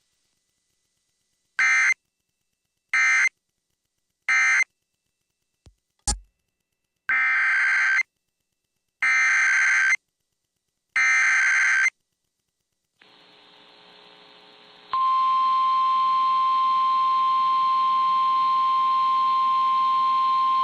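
NOAA Weather Radio Emergency Alert System signals. Three short screeching SAME data bursts end the previous message, followed by a click. Three longer SAME header bursts then announce the next alert, and about fifteen seconds in the steady single-pitch warning alarm tone starts, which precedes a tornado warning.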